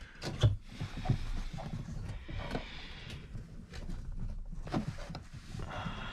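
Hands handling plastic fuel-pump parts and wiring in a fuel tank access hole: scattered light knocks, clicks and rustling.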